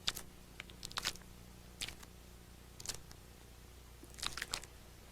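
Faint, sharp clicks, about seven of them at uneven spacing, including a close pair about a second in and a cluster near the end, over a low steady hum.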